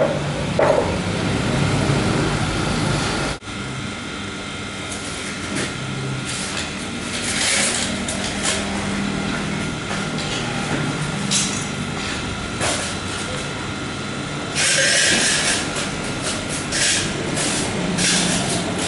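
Steady background din with several short bursts of hiss and a faint steady high tone running through it; the sound cuts off sharply about three and a half seconds in and resumes.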